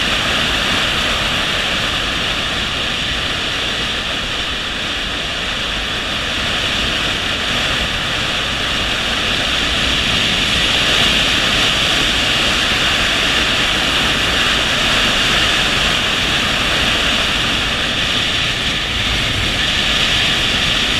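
Steady rush of wind and road noise from a motorcycle riding at speed, picked up by a camera mounted on the bike.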